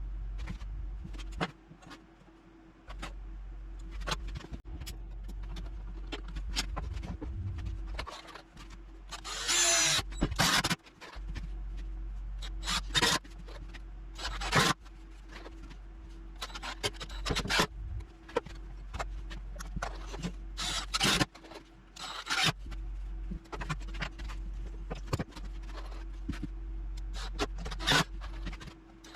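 Hand-tool work sounds: scattered knocks and clicks of tools and material being handled, with a short harsh burst about ten seconds in, over a steady low hum.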